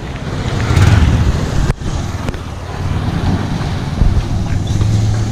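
Street traffic noise: motorcycle engines running as the bikes ride along the road, with a steady low engine hum that strengthens in the second half.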